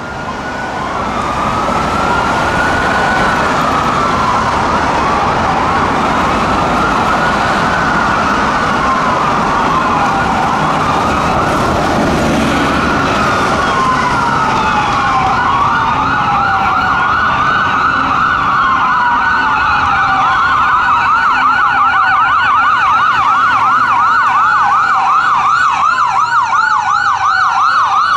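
Sirens of Spartan Gladiator/Smeal fire trucks responding code 3 and drawing nearer. A slow wail rises and falls every few seconds, and about two-thirds of the way in a fast yelp sounds alongside it, over the noise of traffic.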